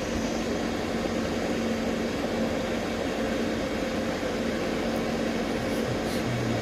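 Steady electrical machine hum from the solar-powered variable frequency drive and its 7.5 hp water pump motor, a constant low tone with a higher tone above it over a even rushing noise.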